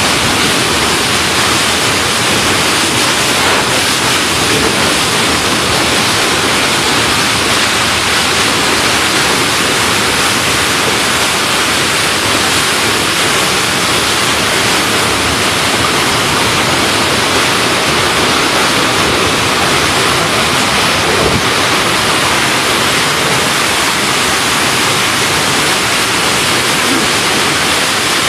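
Loud, steady rushing noise from a chili stem cutting machine running, with no clear rhythm or tone.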